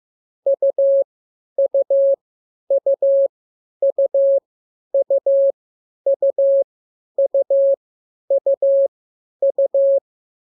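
Morse code tone sending the letter U (dit-dit-dah) over and over, about once a second, as a single-pitched beep keyed on and off.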